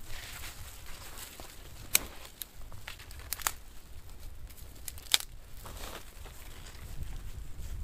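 Dry twigs and tinder crinkling and snapping as a small kindling fire is being lit, with a few sharp snaps, the loudest about two seconds in and about five seconds in.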